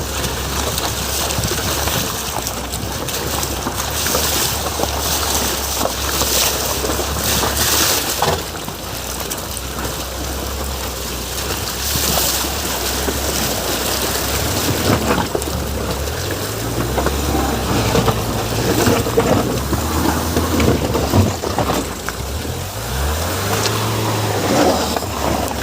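Ford EcoSport driving over a rough off-road track: the engine drones steadily under dense road and body noise with irregular knocks, and its pitch rises several times in the second half as it revs up.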